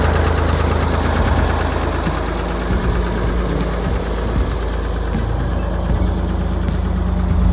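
Ford 535 backhoe's engine idling steadily, its note shifting slightly about two seconds in.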